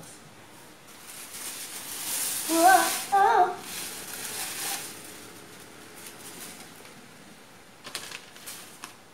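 Rustling and scraping of flat-pack desk packaging (cardboard and plastic wrap) that swells and fades over a few seconds. In the middle come two short high-pitched voice-like calls. Near the end there are a few light knocks as a metal desk bar and the instruction sheet are picked up.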